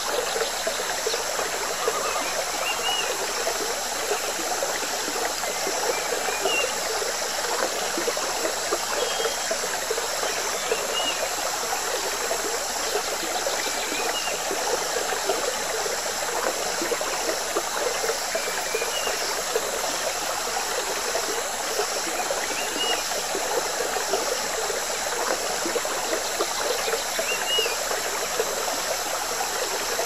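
A jungle river babbling and trickling steadily, with short high chirps now and then.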